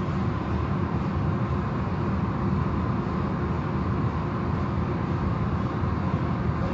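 Car wash machinery running with a steady, even rumble.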